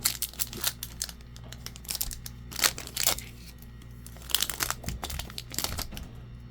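Foil wrapper of a Pokémon booster pack crinkling and tearing as it is opened, in an irregular run of sharp crackles.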